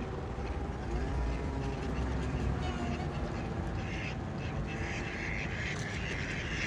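Birds calling, thicker and louder from about four seconds in, over a low steady rumble.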